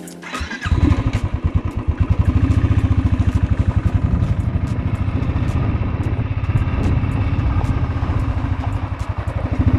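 Motorcycle engine starting about half a second in, then running at idle with a steady pulsing beat.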